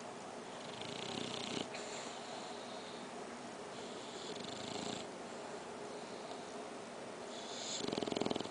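English bulldog puppy snoring in its sleep: three raspy, rattling snores about three seconds apart, the last one, near the end, the loudest.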